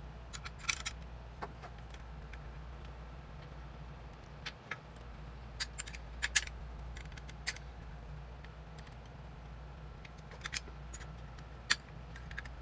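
Small metal hardware (bolts, washers and nuts) clicking and clinking against a quilting-frame sidearm bracket as it is fitted by hand: about a dozen sharp, irregular clicks, a few in quick pairs, over a low steady hum.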